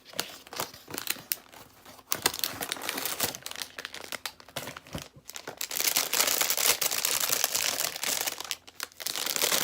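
Plastic squishy packaging crinkling and crackling as it is handled and opened, loudest in the last few seconds.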